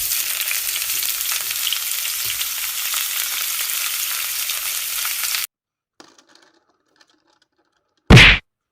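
Steady frying sizzle that cuts off abruptly about five and a half seconds in, followed by a few faint clicks and then a single loud, sharp knock near the end.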